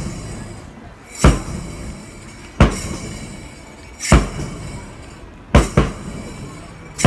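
Heavy, booming drum beats from the display's accompanying music, one about every second and a half, each dying away, with a quick double beat near the end.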